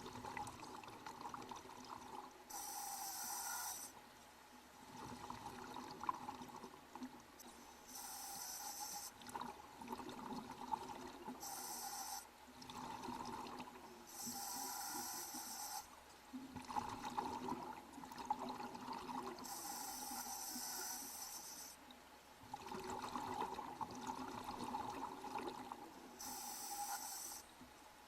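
A scuba diver breathing through a regulator underwater. Six short hissing inhalations come at irregular intervals, and each is followed by a longer bubbling exhalation.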